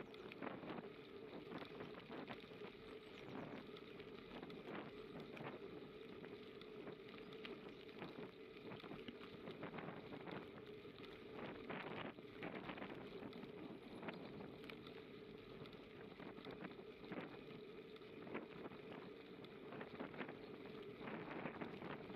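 Bicycle riding on a path: tyres rolling over the surface with frequent small rattles and clicks from bumps, a steady hum underneath, and some wind on the microphone.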